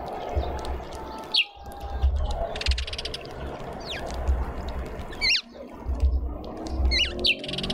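Garden birds calling: short, sharp chirps about a second and a half in, again past five seconds, and a quick cluster near the end, with a brief buzzy rattle about three seconds in. A steady low rumble runs underneath.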